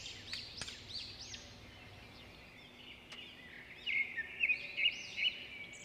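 Small birds chirping in quick, high twitters, busiest and loudest from about four seconds in, with a couple of faint clicks.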